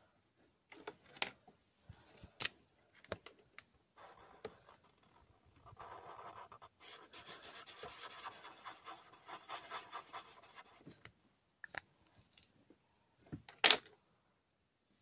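Marker pen scratching across paper in drawing strokes, with a steady scratchy stretch through the middle and scattered small clicks before it. A couple of sharp knocks follow near the end, and the last of them is the loudest sound.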